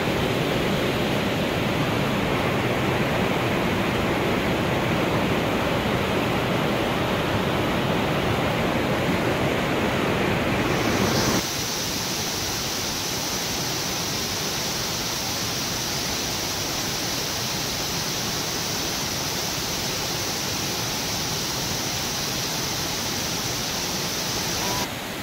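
Steady rush of a waterfall and a rocky mountain stream. About eleven seconds in it cuts abruptly to a slightly quieter, hissier rush of cascading water.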